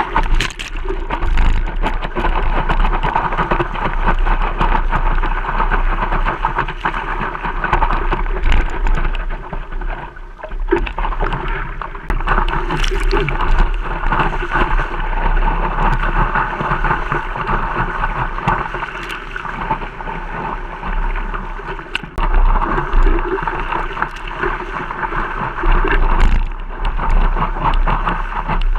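Water rushing and splashing around a surfboard as it rides a wave, with wind rumbling on the board-mounted camera's microphone.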